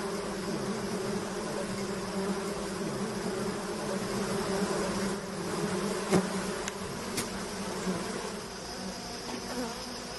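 Honeybees buzzing in a dense cluster, a steady low drone, with a single sharp click about six seconds in.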